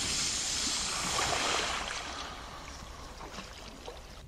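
Loaded folding kayak being shoved off a sandy bank, its hull sliding and scraping into the river with a rushing noise that fades after about two seconds.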